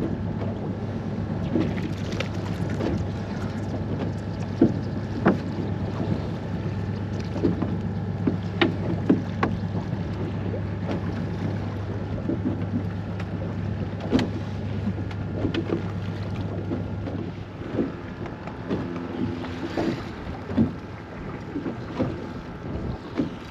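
A small center-console fishing boat on choppy water: a steady low hum runs until it stops about three-quarters of the way in, with scattered sharp knocks and clicks of gear on the deck and hull.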